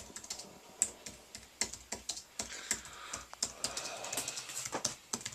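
Typing on a slim computer keyboard with low-profile white keys: quick, irregular runs of light key clicks, denser in some stretches than others.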